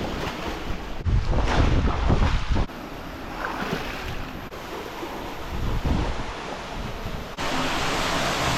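Water sloshing and splashing with wind buffeting the microphone, loudest between about one and three seconds in. About seven seconds in it gives way suddenly to a steady rush of falling water.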